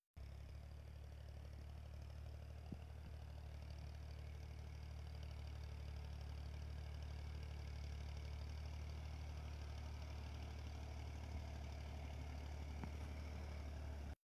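Massey Ferguson 240 tractor's three-cylinder Perkins diesel running steadily while pulling a cultivator through the soil, its low engine note growing slowly louder as the tractor comes closer.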